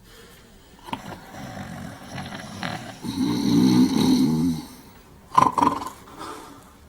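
Two men snoring in turn: a long, deep snore about three seconds in, then a shorter, higher snore about two seconds later.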